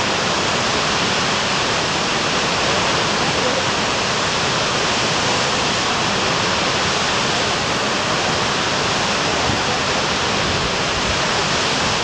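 Gullfoss, a multi-tiered waterfall, rushing steadily: an even wash of falling water with no breaks.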